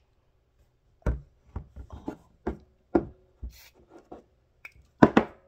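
Homemade slime being worked by hand with baby powder: a series of sharp, irregular clicks and taps, the loudest two close together near the end.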